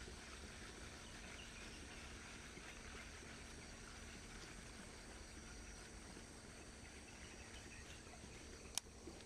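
Faint riverside ambience: a steady high insect chirring over a soft even hiss, with one sharp click near the end.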